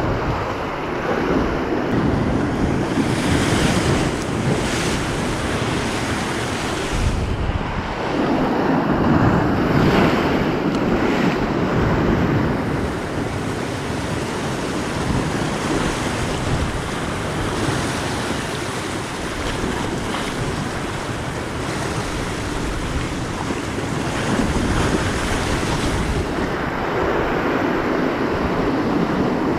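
Sea surf washing and breaking on a rocky shore, swelling louder a few times as waves come in, with wind buffeting the microphone.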